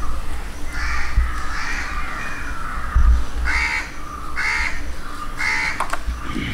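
Crows cawing: several caws, three clear ones about a second apart in the second half, over a steady low rumble, with a sharp click shortly before the end.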